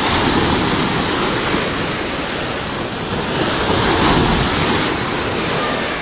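Heavy surf: large sea waves breaking on the shore in a continuous rush of churning water, swelling loudest at the start and again about four seconds in.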